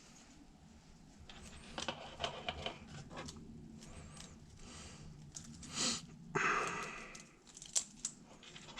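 Hands handling and twisting stripped radio harness wires: scattered small clicks and rustles, with a louder rasping scrape lasting under a second a little past halfway.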